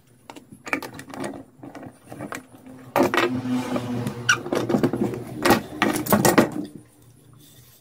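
Handling noise on a workbench: a run of irregular knocks, clicks and rattles as a plastic clock movement, a plastic clamp and wooden pieces are picked up and set down, busiest in the middle and dying away near the end.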